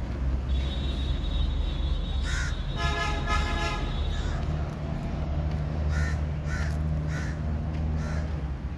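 Crows cawing: a single caw about two seconds in, then a run of four short caws near the end. A pitched tone with many overtones sounds for about a second and a half in between, over a steady low rumble.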